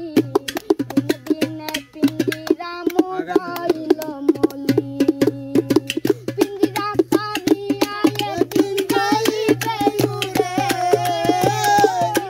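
A boy singing a Bengali folk song, with a hand-played drum keeping a quick, steady beat. The voice climbs higher near the end.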